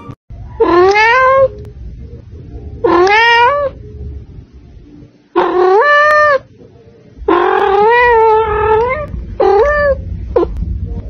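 A kitten meowing loudly: about six drawn-out meows a second or so apart, each sliding up in pitch, the fourth the longest, and a short one near the end.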